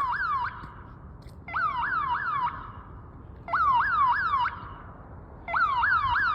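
Electronic security alarm siren sounding in repeated bursts of about a second, every two seconds. Each burst is a rapid warble of about four quick up-and-down pitch sweeps, and each burst leaves an echo trailing after it.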